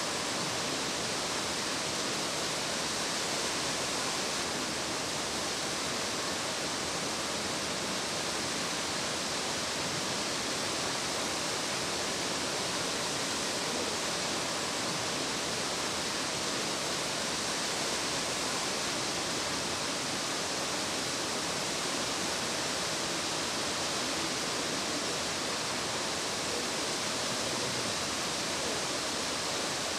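Nachi Falls, a tall single-drop waterfall, rushing steadily: a constant, even hiss of falling water with no breaks.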